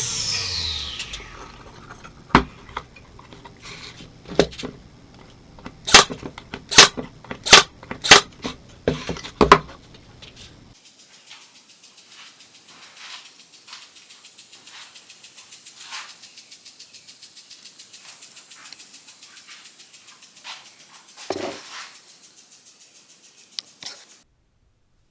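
A series of sharp knocks, about eight at uneven intervals over the first ten seconds, then a quieter stretch of faint ticks and light taps. The sound cuts off about a second before the end.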